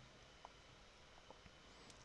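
Near silence: room tone, with a faint click about half a second in and two fainter ticks a little later.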